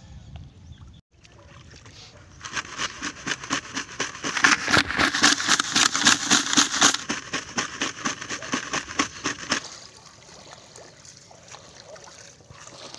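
Sea urchins clattering and scraping inside a pail as it is shaken hard, which knocks their long spines off. The rapid rattling starts about two seconds in and stops near ten seconds.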